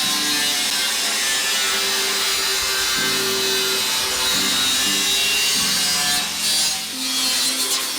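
A power tool cutting 3mm steel plate, with a steady harsh noise that falters and picks up again a few times in the last couple of seconds. Background music plays underneath.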